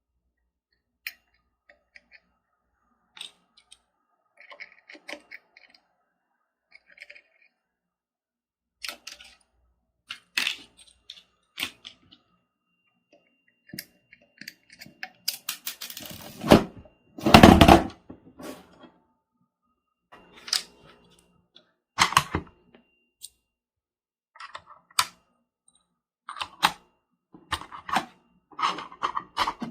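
Handling noises: scattered light clicks and taps of small objects being picked up and set down, with a louder scraping clatter about sixteen to eighteen seconds in.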